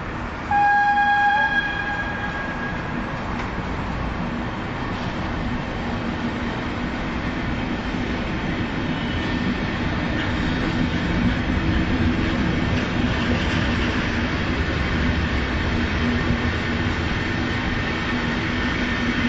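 A single horn blast about a second long, one steady tone that bends up slightly as it ends, followed by the steady rumble and wheel-on-rail noise of the Intercity train running into a station. The running noise grows a little louder over the last several seconds.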